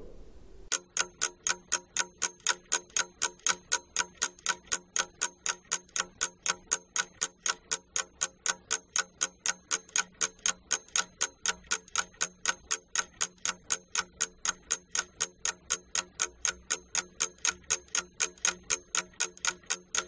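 Clock-ticking sound effect counting down the answer time for a quiz question: fast, even, identical ticks that start just under a second in.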